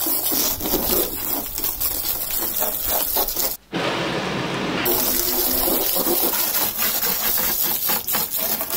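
Jet of water from a garden hose nozzle set to full, spraying onto a motorcycle and splashing off its bodywork and the concrete beneath. The spray runs steadily, with a brief break about three and a half seconds in.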